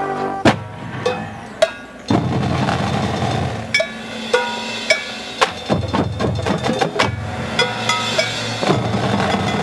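Marching band percussion section playing a groove: snare drumline and bass drums over a low sustained bed, with crisp woodblock-like clicks about twice a second and short pitched mallet notes. A sharp hit comes about half a second in.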